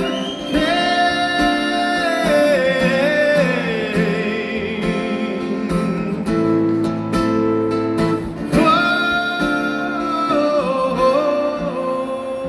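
Male tenor singing long held, gliding notes over acoustic guitar accompaniment in the final bars of a pop ballad performed live.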